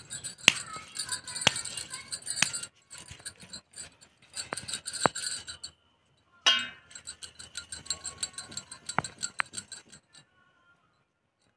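Soft, wet rice-flour dough being squeezed, kneaded and pressed between the hands over a steel bowl: a sticky crackling squish in stretches, with a few sharp clicks. It stops about ten seconds in.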